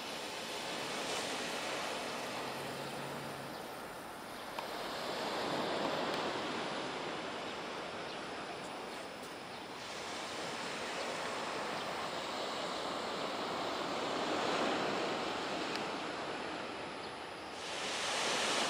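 Ocean waves washing onto a shore, the surf swelling and falling back every few seconds.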